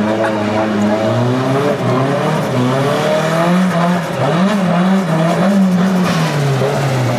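Nissan Silvia S15 drift car doing a burnout: the engine is held at high revs, its pitch bouncing up and down a few times, then dropping near the end, with the rear tyres spinning and squealing.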